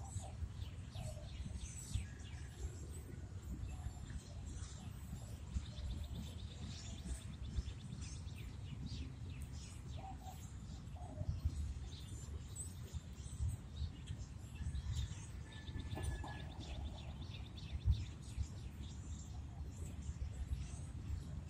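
Birds chirping over a steady, uneven low rumble, with a single dull thump late on.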